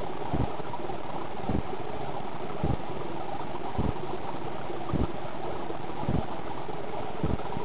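Aquarium water pump running underwater: a steady hum and hiss with a low thump about once a second.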